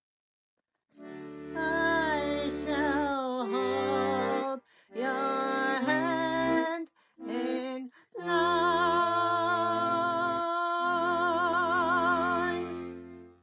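A woman singing over held instrumental chords with bass notes, in short phrases. About 8 seconds in she holds one long final note with wide vibrato while the chord sustains beneath it, fading out at the very end.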